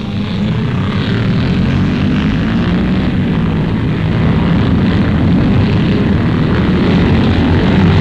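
A pack of 350 cc motocross motorcycles running together in one dense, continuous engine drone as the field gets away from a mass start, swelling in the first half-second and then holding steady.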